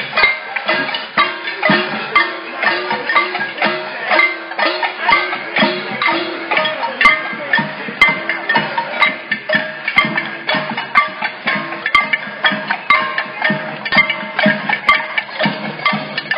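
Many pots and pans beaten with wooden spoons by marching protesters, a loud clattering in a fast steady rhythm.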